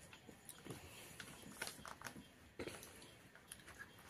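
Faint eating sounds: scattered soft clicks and smacks of chewing and of fingers mixing rice on metal plates.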